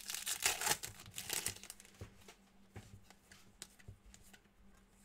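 A foil trading-card pack being torn and crinkled open, then light rustles and ticks of cards being handled and flipped through.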